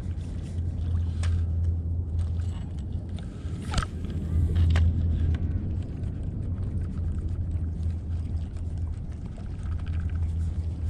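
A kayak under way, with a steady low rumble, a few light knocks, and a short squeak about four seconds in.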